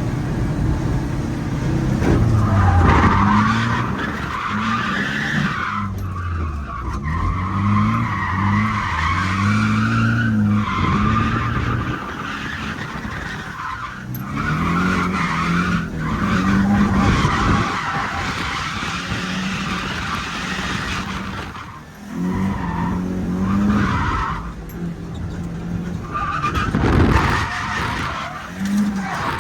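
Drift car on track, its engine revving up and falling back again and again while the tyres squeal through long slides.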